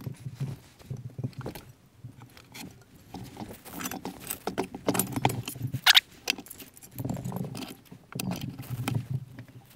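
Metal clatter and knocks from sheet steel being bent in a bench vise and handled at a workbench, with one sharp metal strike about six seconds in.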